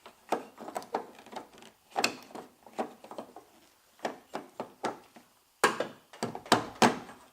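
Old car door handle being worked loose and out of the door: irregular clicks, knocks and rattles, loudest in a cluster near the end.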